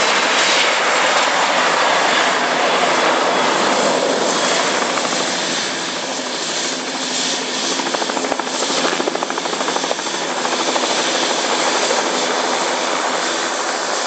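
Learjet 60's twin turbofan engines at takeoff power: a loud, steady jet roar as the business jet rolls down the runway and departs. The roar eases slightly after about five seconds.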